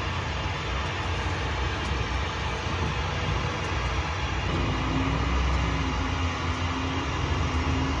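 Steady road noise of a moving vehicle heard from inside the cabin: tyres and engine running, with a low drone joining about halfway through.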